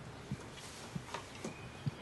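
Footsteps of someone walking on grass and dead leaves: low, soft thuds, about two a second. A faint thin whistle sounds near the end.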